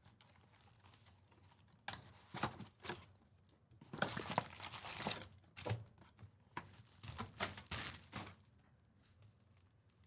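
Foil wrappers of Topps Chrome trading-card packs being torn open and crinkled, in several short bursts with quiet gaps between.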